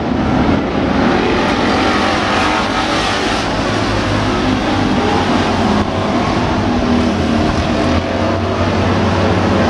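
A field of dirt-track street stock race cars running together at racing speed around the oval: a loud, steady blend of several engines.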